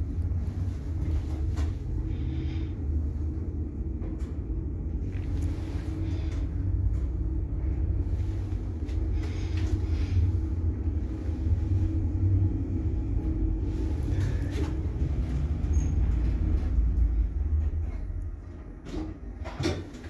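ZEMM passenger lift travelling upward, heard from inside the car: a steady low rumble with a faint hum. It eases off near the end as the car slows to a stop, with a few clicks.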